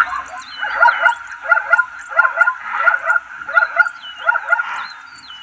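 Zebra giving its barking call: a run of about six yelping barks, a little under a second apart, fading near the end.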